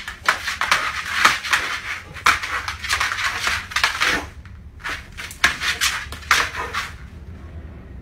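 A dog's claws scrabbling and paws slapping on a laminate floor as it pounces at a laser dot, in two flurries with a brief pause about halfway.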